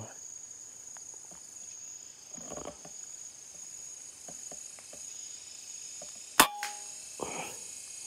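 A PCP air rifle fires once about six and a half seconds in: a single sharp crack with a brief ringing after it. A steady high-pitched drone of forest insects runs underneath.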